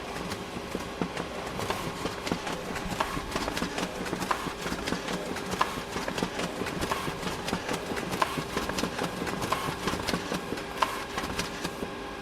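Photocopier running a copy job: a dense mechanical clatter of clicks and rattles over a steady hum, with a stronger clack about every 1.3 seconds as sheets feed through.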